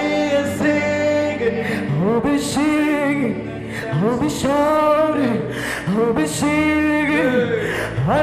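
Worship song: a voice singing long, gliding held notes over sustained instrumental chords.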